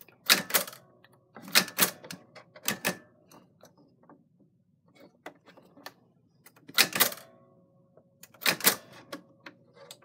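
Typewriter mechanism clacking in about five short clusters of sharp clicks, with fainter ticks between them.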